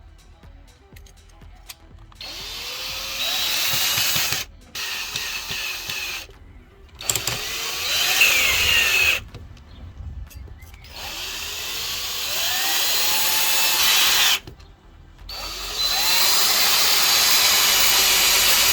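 Power drill running in five bursts of a few seconds each, the motor speeding up at the start of each.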